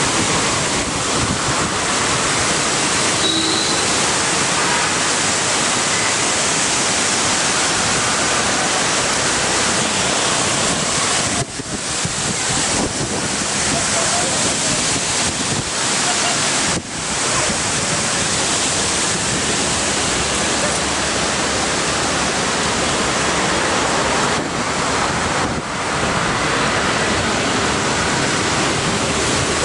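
Strong storm wind rushing through trees and buffeting the microphone: a steady, loud rush of noise that dips briefly twice near the middle.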